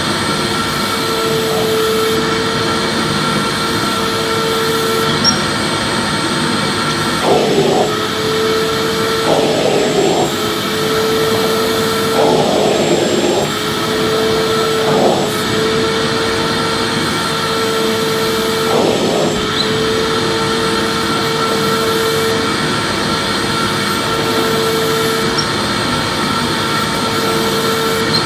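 Vacuum cleaner motor running steadily with a constant rushing hiss and a whine that drops out and returns every few seconds. Several brief fluttering changes in the airflow come between about a quarter and two thirds of the way through.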